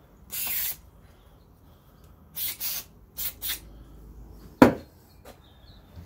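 Aerosol spray can hissing in five short bursts as a small carburetor part is sprayed clean, followed by a single sharp knock about two-thirds of the way through.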